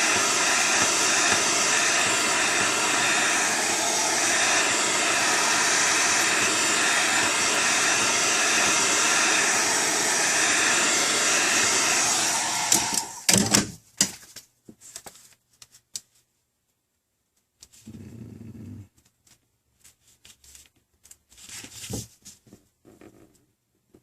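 Hot-air blower running steadily to heat the tablet's cracked glass and soften its adhesive, cutting off suddenly about 13 seconds in. A few light clicks and short handling noises follow.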